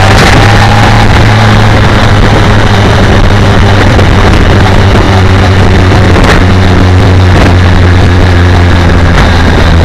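BMW K1200R Sport's inline-four engine running at a steady, even pitch while riding along, heard with heavy wind rush on the bike-mounted microphone.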